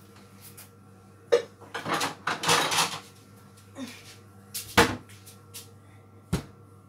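Kitchen handling noise: a few sharp knocks with a stretch of rustling in between. The last knock is a rolling pin being set down on a wooden worktop over the pastry dough.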